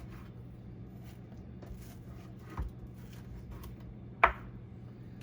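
Knife and hands working raw chicken, the breast being cut and peeled back off the breastbone: faint scattered small clicks and a sharp knock about four seconds in, over a low steady hum.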